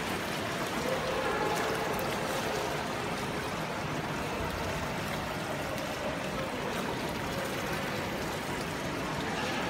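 Steady rushing and trickling of swimming-pool water: an even wash of noise with no distinct splashes or strokes.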